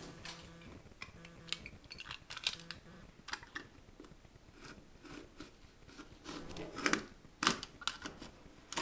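Blue painter's tape being cut free with a small hand tool and peeled off a coated countertop edge: irregular scratching and crackling clicks, a little louder about seven seconds in.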